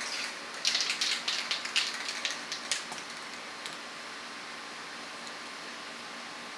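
A quick run of light clicks and rattles from something being handled, lasting about two seconds from about half a second in, then only a steady background hiss.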